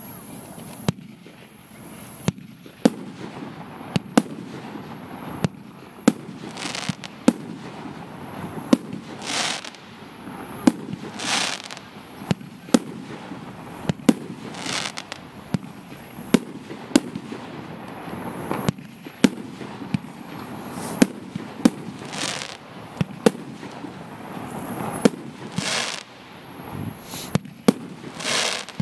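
Firework battery (cake) firing a volley: sharp shots about once a second, with several longer hissing bursts mixed in.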